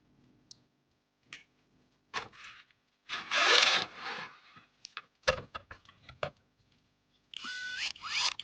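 PC parts and packaging handled by hand: scattered light clicks, a loud scraping rub about three seconds in, and a run of clicks. Near the end comes a scrape whose pitch rises faintly.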